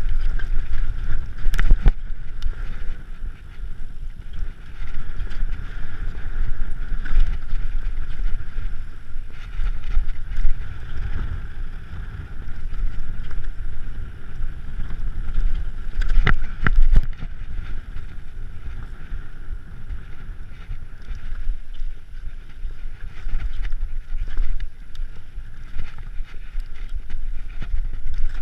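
Mountain bike rolling over a rough, rocky trail: wind rushing over the camera microphone with a steady low rumble, and sharp knocks as the wheels hit rocks, loudest about two seconds in and again around sixteen seconds.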